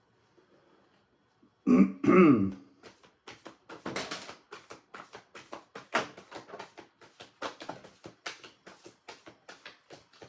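A person clears their throat in two loud bursts about two seconds in. Then comes a run of quick, irregular soft slaps and flicks: a deck of oracle cards being shuffled by hand.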